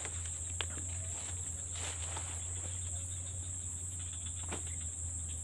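Steady high-pitched chorus of insects, with a few soft rustles and steps through grass.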